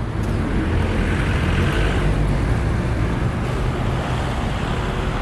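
Motor traffic passing close by on the street: a steady low engine rumble with tyre noise that swells to its loudest about two seconds in.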